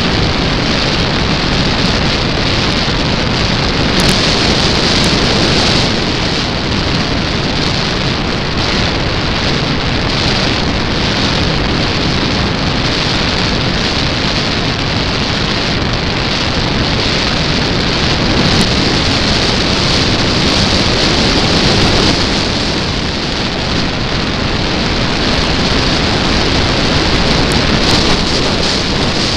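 Steady, loud rushing wind over the onboard camera of a radio-controlled Cessna Corvalis model plane in flight, mixed with the noise of its spinning propeller.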